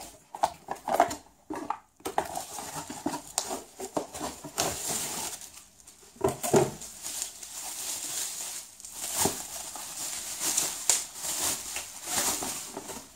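Plastic bubble wrap and cardboard packaging rustling and crinkling, with many small irregular handling clicks, as a radio-control transmitter is taken out of its box and unwrapped.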